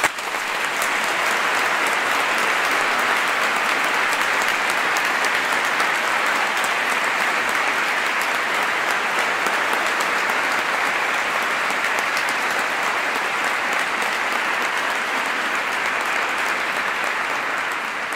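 Congregation applauding, a steady dense patter of many hands clapping that starts to die away near the end.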